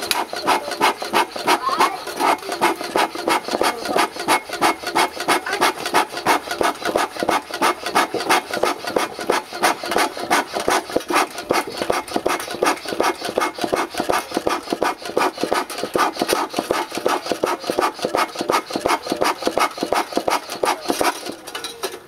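Bee smoker bellows pumped steadily, about three short puffs of air a second, blowing onto burning charcoal to drive the heat down into the stump; the pumping stops near the end.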